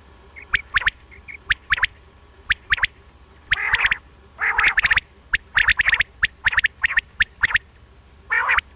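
Common quail (batair) calling: quick sharp notes in twos and threes, mixed with several longer rasping calls. A recorded male quail call of the kind played to lure quail for netting.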